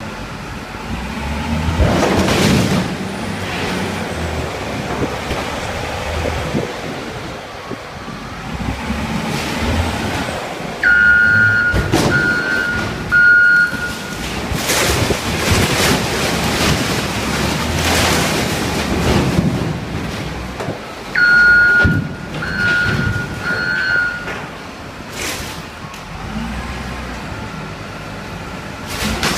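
A wheel loader's diesel engine running and working under load while its bucket crushes a Yamaha Exciter jet boat, with sharp cracks and crunches from the breaking fiberglass hull. Twice, about a third and two-thirds of the way in, the loader's back-up alarm beeps three times as it reverses.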